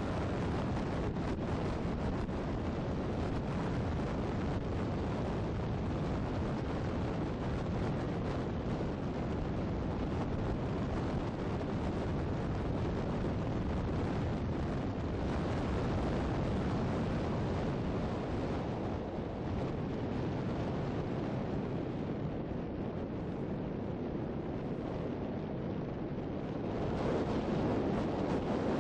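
Wind buffeting the microphone over the steady noise of a tour boat under way, with engine rumble and water rushing along the hull. It grows a little louder near the end.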